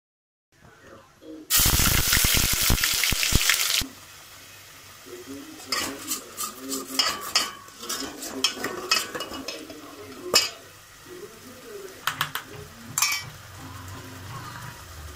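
Masala paste sizzling loudly in hot oil in a stainless steel pressure cooker for about two seconds, then cutting off suddenly. After that a steel spoon stirs and scrapes the frying masala against the cooker, with repeated metal clinks and scrapes.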